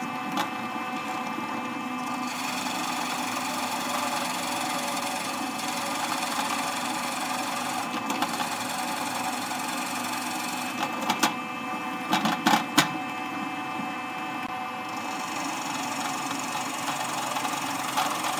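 Drill press running with a Forstner bit boring into a wooden slab: a steady motor hum mixed with the grinding noise of the bit cutting wood. A few sharp knocks come about two-thirds of the way through.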